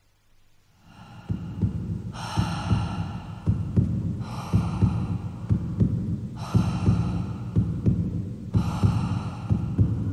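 Suspense soundtrack cue starting about a second in: a low, heartbeat-like throbbing pulse, overlaid about every two seconds by a higher swelling tone lasting about a second, four times.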